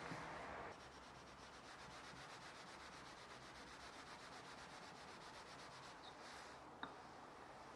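Steel plane blade being rubbed back and forth on a wet whetstone. A rougher, louder rub in the first moment gives way to fast, even, light strokes. There is a small click near the end.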